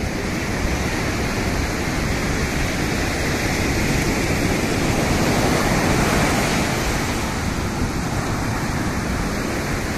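Sea surf washing up the beach: a steady rush of breaking waves that swells a little midway and then eases.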